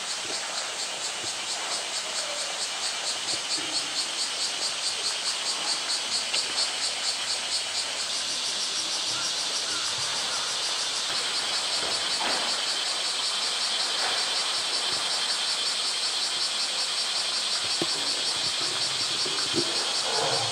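Cicadas buzzing in a pulsing chorus, about three pulses a second, that turns into a steadier drone about eight seconds in, over the constant rush of water pouring into a pool.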